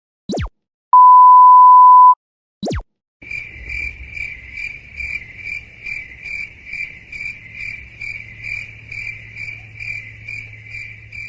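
A quick falling whoosh, a one-second steady beep like a censor bleep, and another falling whoosh. Then a cricket-chirping sound effect pulses about twice a second over a low hum: the comic 'crickets' gag for an awkward silence.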